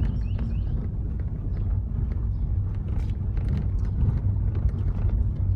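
Car rolling down a cobblestone street: a steady low rumble of the tyres on the stones, with many small clicks and rattles.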